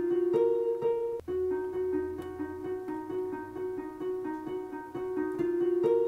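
Digital piano playing a flowing figure of quick, evenly repeated notes, about five a second, over held lower notes. There is a brief break in the sound a little over a second in.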